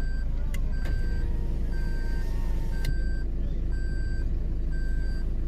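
Off-road vehicle's engine running with a steady low rumble, while an electronic warning beeper sounds a short, even beep about once a second, like a reversing alarm. A few sharp clicks sound in the first three seconds.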